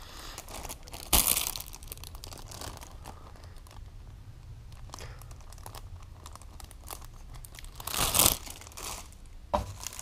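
Clear plastic bags around plastic model-kit sprues crinkling as they are handled and lifted from the box, with two louder rustles, one about a second in and one near the end.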